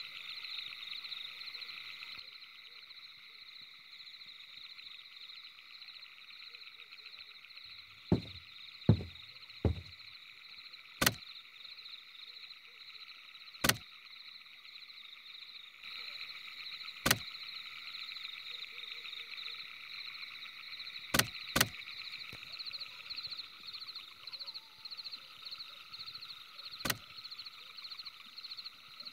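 Night-time ambience of a calling frog or insect chorus, a steady high-pitched pulsing trill. Scattered through it are a few sharp clicks, with three dull thumps about eight to ten seconds in.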